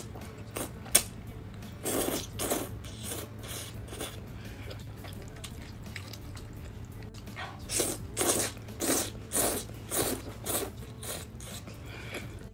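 Close-miked chewing of a mouthful of black pepper pasta with beef: a couple of wet chews about two seconds in, then a run of regular chews about twice a second in the second half.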